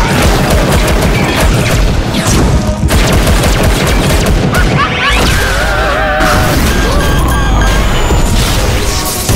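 Cartoon fight sound effects: a dense run of booms, crashes and blasts from a toy-robot battle, over music, with a warbling tone about halfway through.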